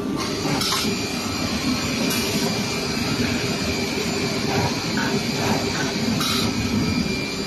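Leabon SG612J six-sided CNC drilling and milling machine running as it works a furniture panel: a steady mechanical hum and rush with a few held tones. Short noisier rushes come a little under a second in, at about two seconds, and just past six seconds.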